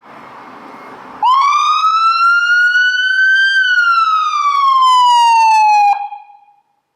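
Ambulance siren sounding one slow wail: the pitch climbs for about two seconds, then falls for about two and a half, and it cuts off sharply about six seconds in. A second or so of quieter steady noise comes before it.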